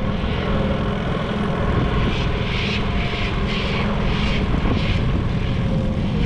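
A boat's outboard motor running under way, loud and steady with heavy wind noise and a rhythmic hiss about twice a second; it cuts in suddenly.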